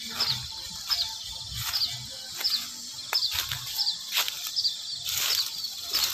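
Footsteps on a wet, muddy path, a step roughly every 0.7 seconds. Short high chirps repeat and a steady high insect buzz runs underneath.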